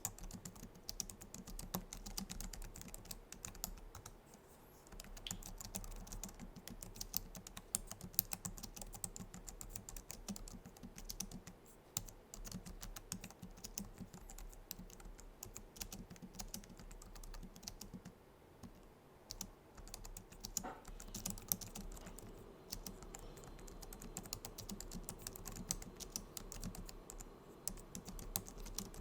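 Typing on a Logitech MX Keys low-profile scissor-switch keyboard: a quick, steady run of soft key clicks, with a brief lull about four seconds in.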